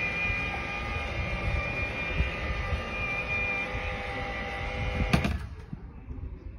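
Klein Vision AirCar flying car transforming, its wings folding upward: a steady mechanical whine with several held tones over wind rumble on the microphone. It cuts off with a sharp click about five seconds in.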